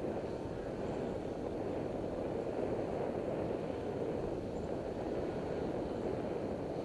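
Steady rush of wind and tyre noise on the microphone of a camera riding along on a moving bicycle over asphalt, with no breaks.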